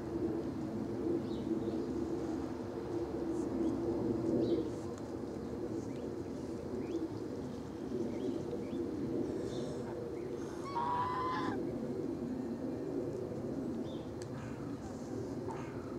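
Outdoor birdsong: a dove cooing low and continuously, with scattered short chirps from small birds and one brief, louder call about eleven seconds in.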